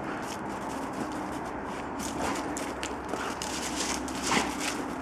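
Irregular crunching and scraping of feet moving in snow, with the loudest crunches about four seconds in.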